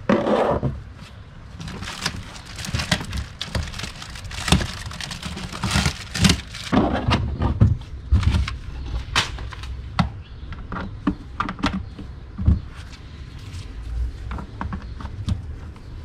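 Plastic planter parts being handled and fitted together: an irregular string of clicks, knocks and rattles, some sharper ones a few seconds apart, over a low background rumble.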